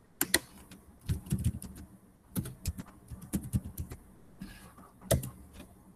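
Computer keyboard typing: short runs of key clicks with pauses between them, and a few louder single key strikes, one near the start and one near the end.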